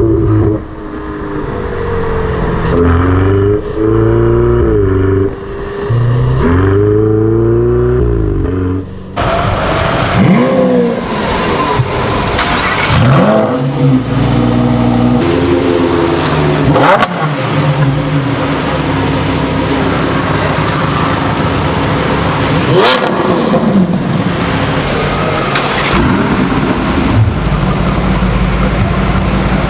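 High-performance car engines revving hard, joined from separate recordings. In the first nine seconds the engine note repeatedly climbs and drops. After a sudden change there are several quick swoops in pitch, and near the end a steadier engine note.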